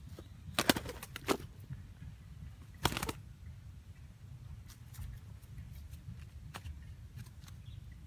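A trapped bird's wings flapping in bursts as it is handled, mixed with sharp crackles of bark and sticks from the deadfall trap; the loudest bursts come about a second in and again about three seconds in, with a few fainter clicks afterwards over a low wind rumble.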